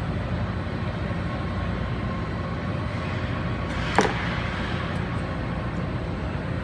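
Steady background hum of a shop, with a single sharp metal clink about four seconds in as the pump casing is slid on over the impeller.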